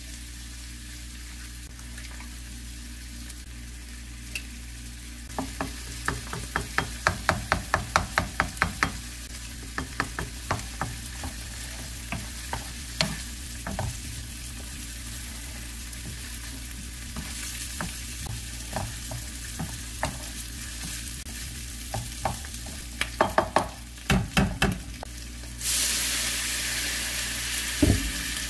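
Shrimp, vegetables and eggs frying in a nonstick frying pan with a steady sizzle. A wooden spatula taps and scrapes against the pan in quick runs of knocks as the eggs are scrambled. Near the end, soy sauce hitting the hot pan sets off a sudden, louder sizzle.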